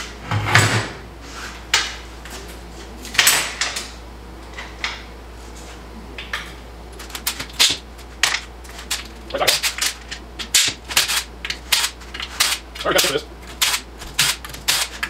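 Metal clicks and clanks from hand tools and parts as a TH350 automatic transmission is worked apart on a steel workbench. From about seven seconds in there is a run of rapid, irregular clicks.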